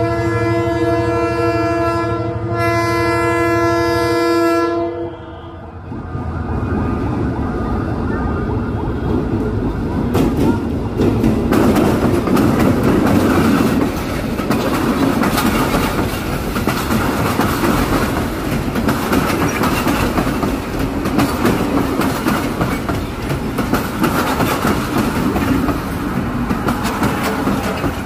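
A passenger train's horn sounds in a long blast, breaks briefly and sounds again for about two more seconds before cutting off. The train then rolls past close by, its coaches' wheels clicking rapidly over the rail joints in a steady loud rumble.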